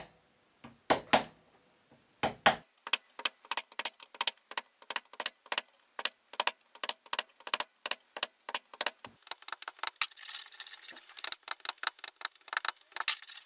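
Wood chisel chopping a mortise into a board: a few heavier knocks at first, then a quick run of light, even taps, about four a second, as the chisel is walked along the cut. A short spell of scraping comes about ten seconds in before the tapping resumes.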